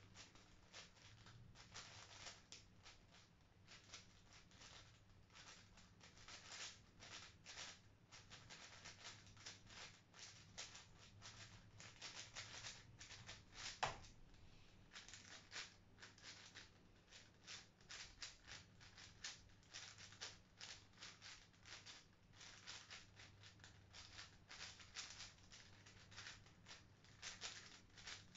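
A plastic 5x5 speed cube being turned fast, a dense run of faint clicks and clacks. About 14 seconds in comes one sharp tap, the loudest sound, as the solve ends and the timer is stopped, and the turning then goes on. A faint steady hum lies underneath.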